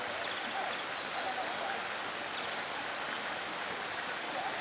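Steady, even hiss of rainforest ambience.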